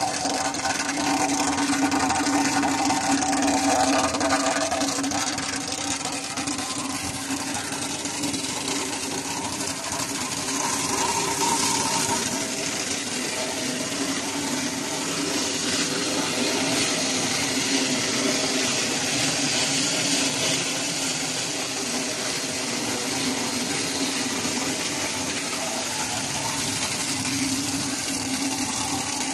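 Unit-type adhesive-tape printing machine running: a steady mechanical hum under an even whirring hiss from the turning rollers and printing units.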